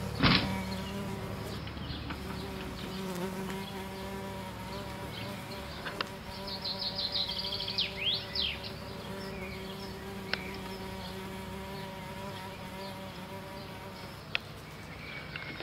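A steady buzzing hum, insect-like, that wavers slightly in pitch. There is a sharp click just after the start and a quick run of high chirps about halfway through.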